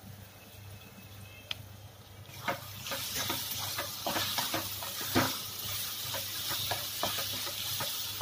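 A spatula stirring corn kernels, onion and spices in a metal kadai, with scraping and clicking strokes against the pan. A sizzle of frying grows louder from about two seconds in.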